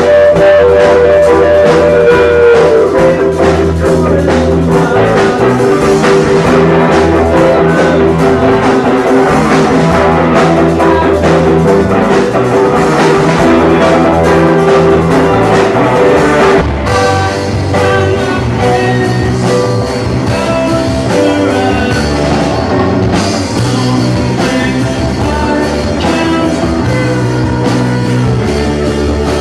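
Indie rock band playing a song: electric guitars and bass over a drum kit, loud throughout, easing back a little about halfway through.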